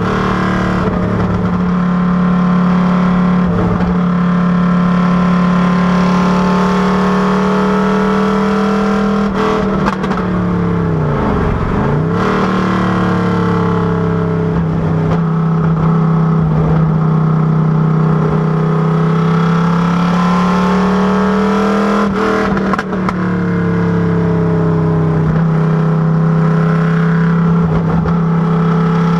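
Factory Five Cobra Daytona Coupé's V8 engine running hard on track. Its note rises and falls slowly with the throttle, and the revs drop sharply and climb back about eleven seconds in.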